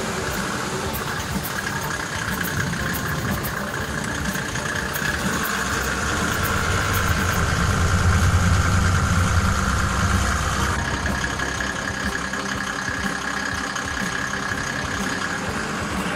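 Mercedes G-Class off-roader's engine running in a water crossing, swelling louder for a few seconds in the middle, with a steady high whine.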